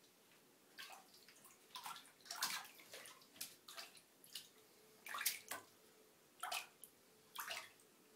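Two cats paddling and scrambling in shallow bathtub water, splashing and sloshing in short irregular splashes that begin about a second in.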